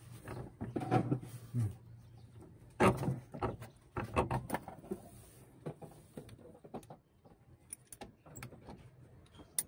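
Scattered light clicks and knocks of pliers and the clutch pedal's pushrod linkage being worked by hand, while the clutch pedal free play is adjusted. The loudest knock comes about three seconds in.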